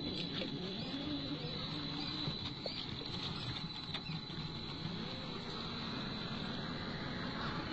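Electric RC crawler (1/10-scale Axial SCX10 II) driving through a shallow creek, its motor and gears whining with a pitch that wavers up and down, over the steady rush and patter of flowing water.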